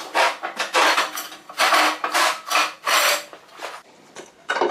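A quick, uneven run of rasping, scraping strokes on metal, about two to three a second.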